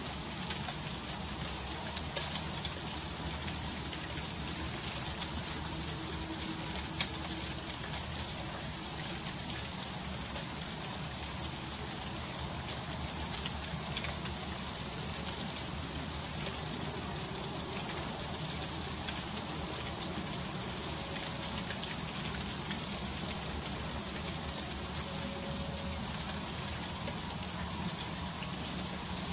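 Freezing rain falling steadily: a constant hiss dotted with many small sharp ticks of drops and ice striking frozen surfaces.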